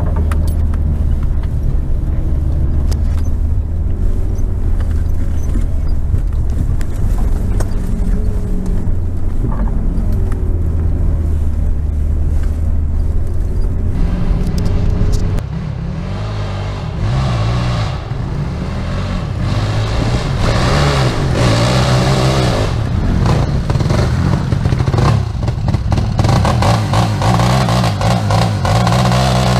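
Off-road SUV's engine running steadily, heard from inside the cab as it drives a bumpy forest track. About halfway through, the sound changes to a quad bike's engine revving up and down as it ploughs through mud.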